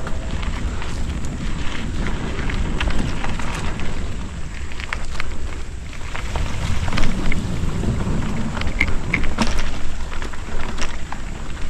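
Mountain bike riding over a dirt trail: a steady rumble of wind on the microphone and tyre noise, with scattered clicks and rattles from bumps.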